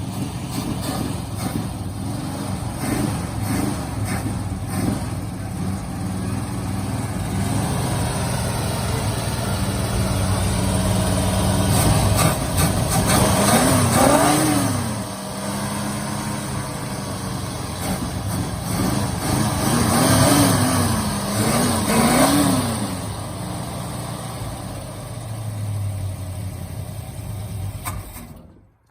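1968 Ford Torino engine running after being brought back to life, blipped up and down several times in two spells of revving; it sounds a little funky, with bugs still to work out. The sound cuts off suddenly near the end.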